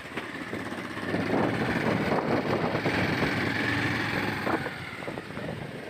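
Motorcycle riding over a rough gravel road: the engine running under wind on the microphone, with many small rattles and crunches from the stony surface. It grows louder about a second in and eases off near the end.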